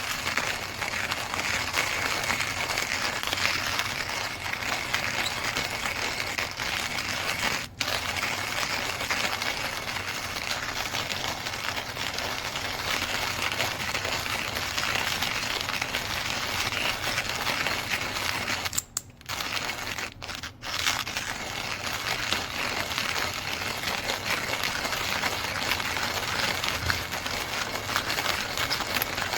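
KitchenAid KCG8433 conical burr coffee grinder running steadily, its burrs crunching beans with a continuous crackling noise. The sound drops out very briefly about eight seconds in and twice around twenty seconds in.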